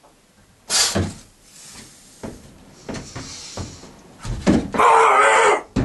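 Shoes and hands knocking and thudding against the holds and plywood of a steep home bouldering wall as a climber moves. The loudest knock comes about a second in and there are several fainter ones. Near the end comes a loud yell of effort lasting about a second.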